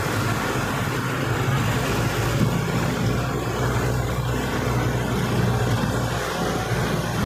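Car driving on a wet road, heard from inside the cabin: a steady mix of engine hum and tyre noise.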